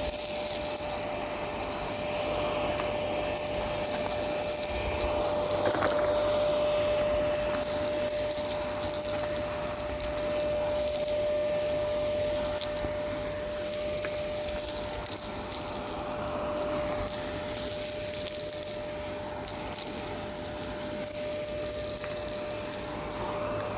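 Miele Complete C2 Tango EcoLine canister vacuum cleaner running steadily with a constant whine, with frequent crackles of grit being sucked up.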